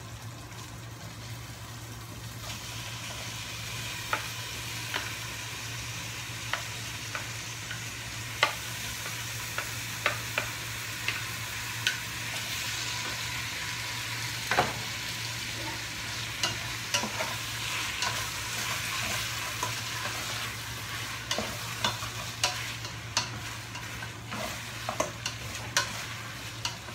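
Diced pork belly frying in a stainless-steel pot of sautéed tomato, garlic and onion, its fat rendering. The sizzle swells about two and a half seconds in, with a spatula clacking and scraping against the pot as it is stirred, over a steady low hum.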